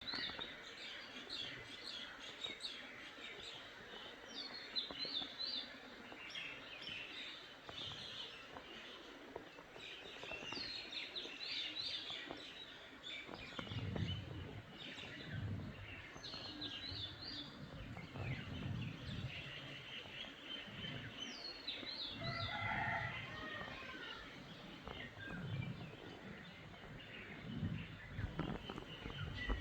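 Small birds chirping, many short high notes repeated over and over, some falling in pitch. From about halfway through, low dull bumps come and go under the chirping.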